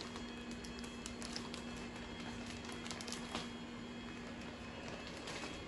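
Quiet room tone with a steady low hum and a few faint, scattered clicks and taps.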